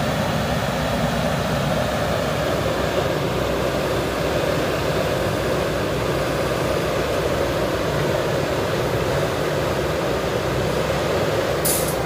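JCB backhoe loaders' diesel engines running steadily under work, a continuous engine drone, with a brief hiss near the end.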